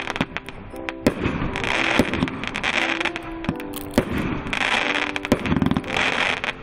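A 36-shot fireworks cake firing, with a sharp bang from each shot about once a second and bursts of crackling as the stars break. Background music plays underneath.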